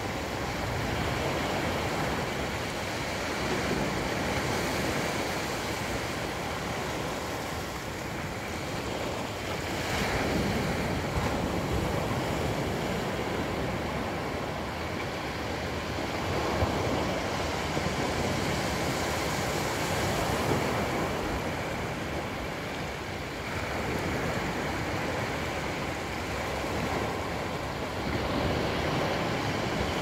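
Small waves breaking and washing up a sandy beach, the surf swelling and fading every five or six seconds.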